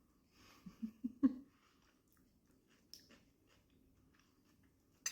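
Faint chewing of food, likely cucumber, with a few soft mouth sounds about a second in and a couple of short clicks later.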